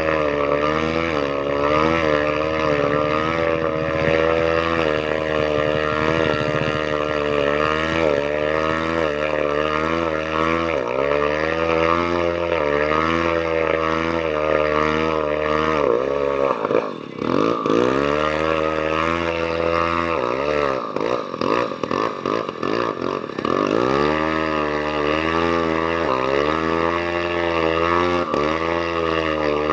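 An engine running with its speed rising and falling unevenly. It dips sharply about halfway through and stumbles again a few seconds later, nearly sputtering out, as an engine does after taking in water.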